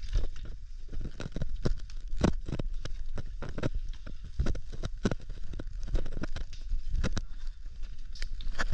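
Cavers moving through a cave passage: irregular knocks, scrapes and rustles of bodies and gear against rock and mud, several a second, over a low rumble.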